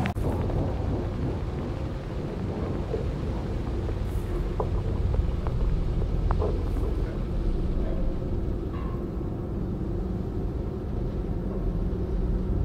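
Low, steady rumbling ambient drone from the sound design of a molecular animation, with a few short, faint tonal blips around the middle.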